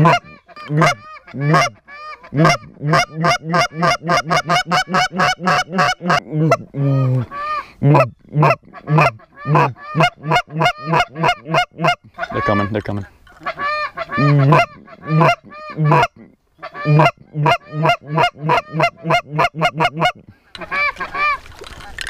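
Canada goose honking and clucking: loud, rapid runs of short calls, several a second, broken by brief pauses.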